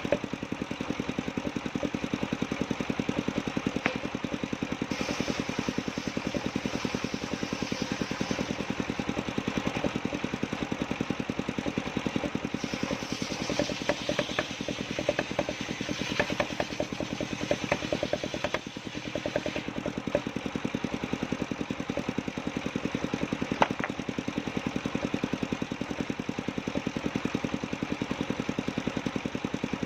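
Engine driving a circular sawmill runs steadily with a fast, even beat. From about five seconds in until near twenty seconds a higher hiss joins it as the blade cuts through a coconut-palm trunk.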